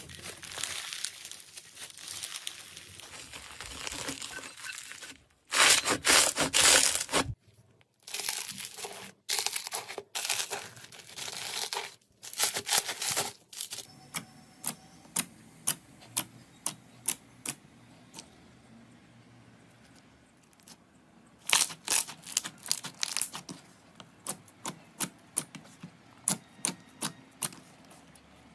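Slime being squeezed, stretched and pressed, crackling and crunching, in several loud spells. In the second half it gives a run of short sharp pops, about one to two a second.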